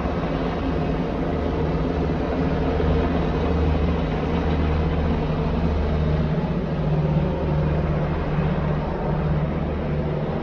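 Steady, low engine drone with a continuous hum of deep tones that does not rise or fall.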